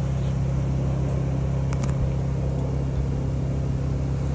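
Steady, even hum of a motor, with a brief click a little under two seconds in.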